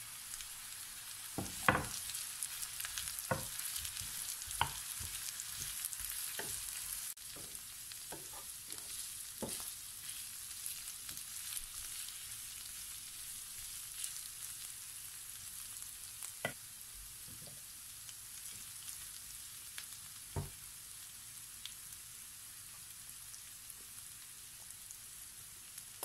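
Minced meat and chopped onions sizzling in a frying pan, a steady high hiss. A wooden spatula knocks and scrapes against the pan as they are stirred, often in the first ten seconds and only now and then after.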